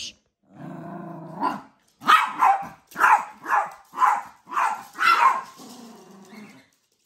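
Yorkshire terrier play-barking over a toy: a low growl rising into a bark, then a run of about six sharp barks roughly two a second, then growling again.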